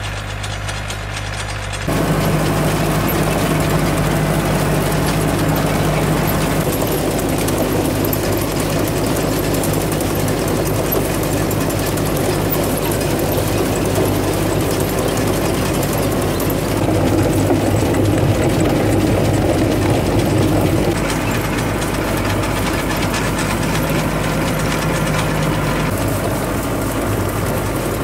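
Compact farm tractor's diesel engine running steadily as it pulls an onion digger, along with the clatter of the digger's chain conveyor carrying onions and soil. It gets louder about two seconds in.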